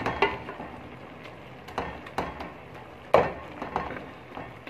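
Wooden spoon stirring soft-cooked turnip pieces in a metal pot, knocking against the pot a few times at uneven intervals, the loudest knock about three seconds in.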